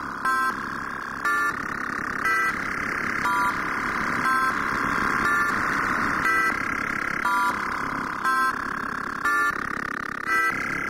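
BrainStormer software synthesizer, with three oscillators set to sine, trapezoid and smooth saw, playing a short bright note about once a second over a sustained buzzy tone. The tone changes as its amplifier envelope and filter knobs are turned.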